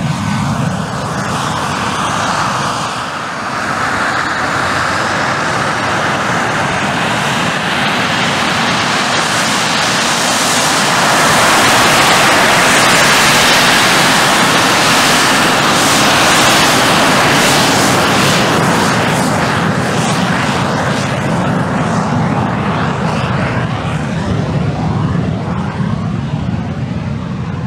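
Soko G-2 Galeb's Rolls-Royce Viper turbojet running as the jet taxis past on grass: a loud, steady jet whine and rush. It swells to its loudest about halfway through as the aircraft passes closest, then eases off.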